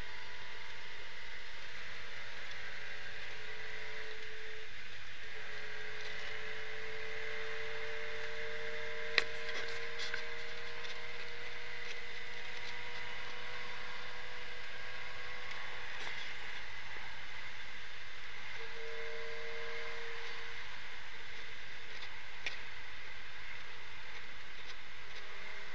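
Triumph Herald 1200's four-cylinder engine running as the car drives, over steady road and wind noise. The engine note climbs slowly through the middle and breaks off and restarts a couple of times later on. A single sharp click about nine seconds in.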